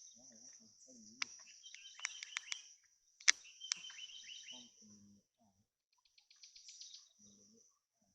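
Forest ambience: birds chirping and clicking over a steady high insect hum, with a few faint low sounds beneath.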